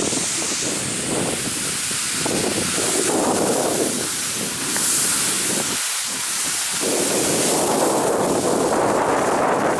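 Wind buffeting the microphone in gusty swells, easing briefly about six seconds in, over a steady hiss of skis sliding on snow during a downhill run.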